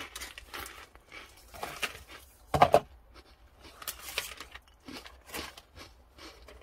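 Foil snack wrappers crinkling and rustling in a series of short bursts as they are handled and opened, with one louder short sound about two and a half seconds in.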